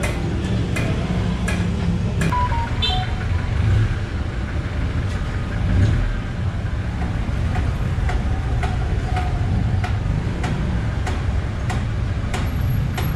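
Steady low rumble of street traffic, with short sharp clicks and taps scattered throughout.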